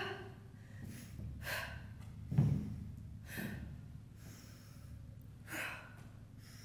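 A woman breathing hard, with audible gasping breaths about once a second as she recovers between high-intensity cardio intervals.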